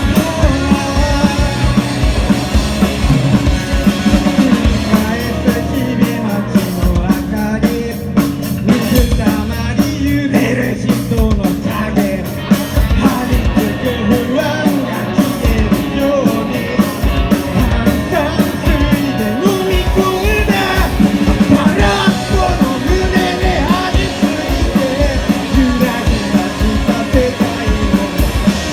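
A punk rock band playing a song: a singer's voice over a driving drum beat and loud instruments.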